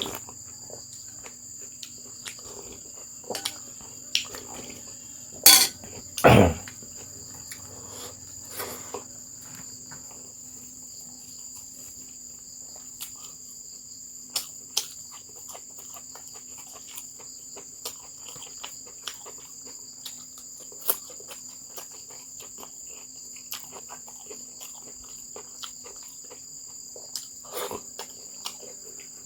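Steady high chorus of crickets, with scattered clicks and knocks of dishes or utensils; the two loudest knocks come close together about six seconds in.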